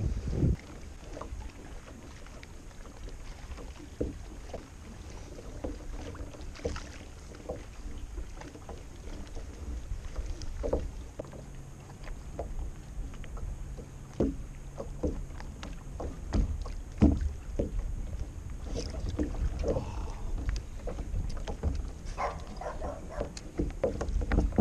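Wind on the microphone and water lapping against a kayak hull, with scattered small knocks and clicks of fishing gear against the kayak.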